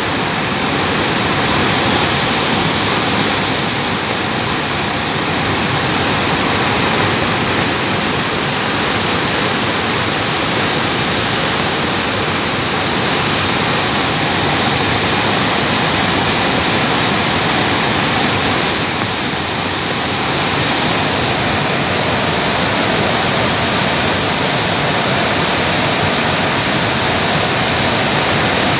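Muddy river in flood rushing over rocks in white-water rapids: a loud, steady rush of churning water.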